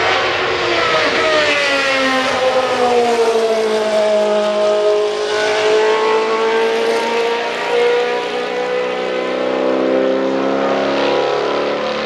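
Group C sports-prototype racing car engines at speed on track. The engine note falls in pitch over the first few seconds as a car passes, holds steady, then further engine notes overlap and climb near the end.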